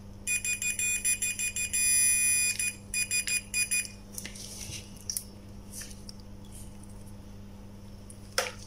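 Fluke 179 multimeter's continuity beeper sounding in a stuttering, repeatedly broken tone for about three and a half seconds, as the probes test for a connection through the motor's carbon brushes. Faint clicks of the test leads follow.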